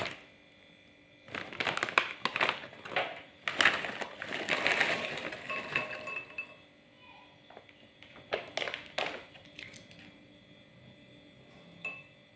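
Plastic snack packet crinkling in several bursts of rustling, with quieter gaps between.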